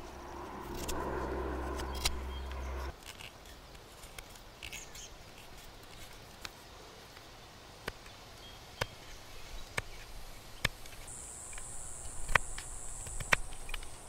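A knife whittling a small piece of wood, its cuts heard as sharp, irregular clicks and scrapes. A low hum sounds for the first three seconds and stops abruptly, and a steady high buzz comes in about eleven seconds in.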